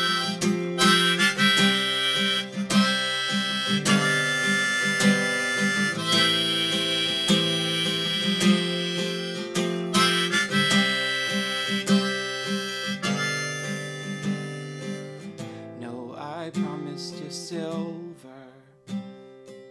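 Harmonica solo played over acoustic guitar in an unplugged folk song. The harmonica stops about 15 seconds in, leaving the guitar quieter on its own.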